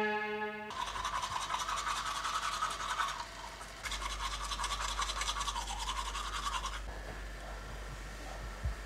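Toothbrush scrubbing teeth in quick back-and-forth strokes, in two spells with a short break about three seconds in, stopping about seven seconds in.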